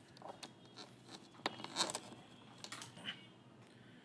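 Faint scattered rustles, scrapes and clicks of small objects being handled, busiest around the middle.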